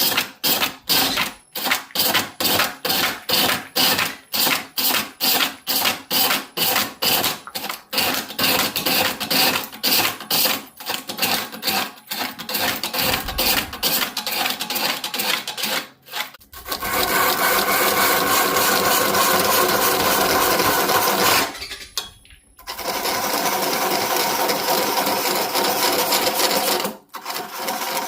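Woodworking tools on wood: a fast even run of hand-tool strokes, about two to three a second, then about halfway through a power tool starts running steadily, cutting out briefly twice.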